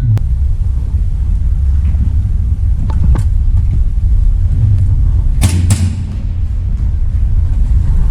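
Airsoft guns firing: sharp pops in two pairs, one about three seconds in and a louder pair about five and a half seconds in, over a steady low rumble.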